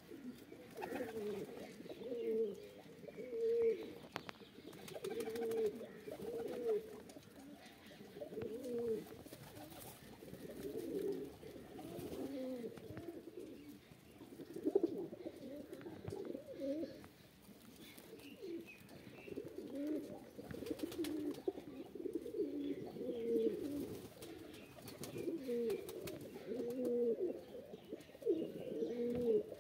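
Domestic pigeons cooing, several birds at once, in a continuous run of overlapping low coos that rise and fall about once a second.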